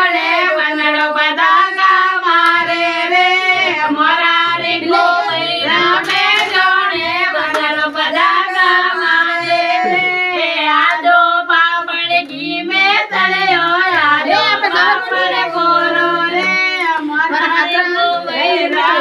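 High-pitched voices singing a song without instruments, the melody running on with only brief breaths.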